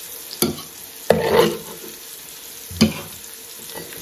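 Raw ground-pork chorizo patties sizzling in hot fat on an electric skillet. A metal spatula knocks and scrapes on the pan three times: about half a second in, a longer scrape just after one second, and once more near three seconds.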